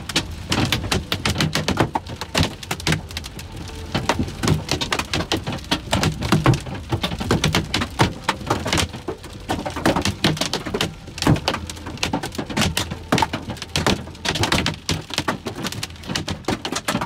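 Golf ball to baseball sized hailstones pelting a car's roof and windshield, heard from inside the cabin: a dense, irregular barrage of hard knocks, several a second, with no let-up.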